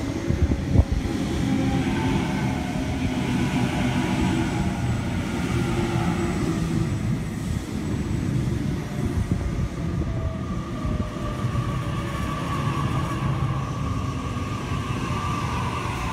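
Waratah A-set electric suburban train pulling into the platform: steady electric motor whine in several tones over wheel and running noise, with a couple of knocks about a second in.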